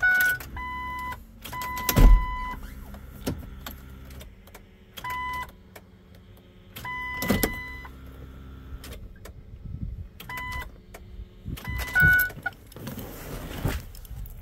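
Short electronic warning beeps, each a steady tone, sounding about six times, with knocks and clicks in between, the loudest knock about two seconds in. They come from a Ford Excursion that will not start.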